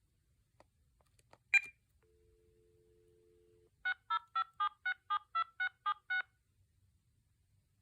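VTech T2326 cordless phone: a click, then a faint dial tone for under two seconds, then ten quick touch-tone (DTMF) beeps, about four a second, as a ten-digit phone number is dialed.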